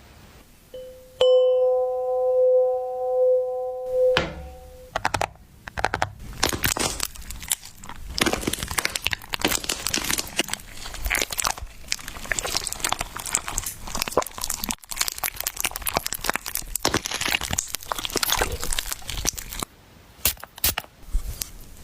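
A steady pitched tone with overtones, held for about four seconds, then a long run of dense crackling and crunching.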